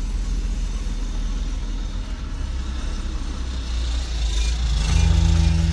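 Suzuki Jimny driving on the highway, heard from inside the cabin: a steady low engine and road rumble that swells a little near the end.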